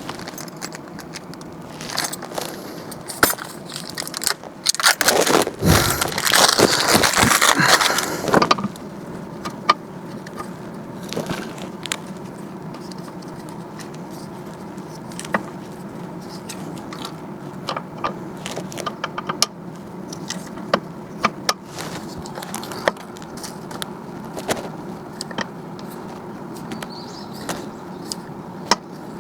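Unpacking noises: a loud rustle of packaging from about four and a half to eight and a half seconds in, then scattered clinks and clicks of small metal tools being handled, over a steady low hum.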